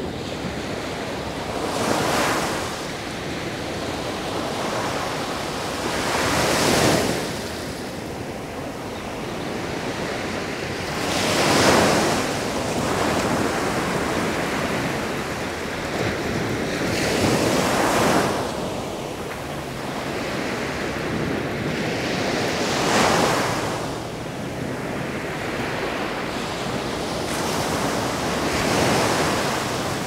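Sea waves breaking on a beach, with a steady wash of surf. About six waves swell up and break, one every five to six seconds.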